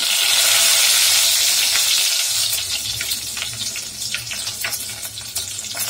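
Fresh curry leaves hitting hot oil and ghee with mustard seeds in a steel pot: a sudden loud burst of sizzling that eases after a second or two into steady frying with scattered crackling pops, the tempering stage of a South Indian dal curry.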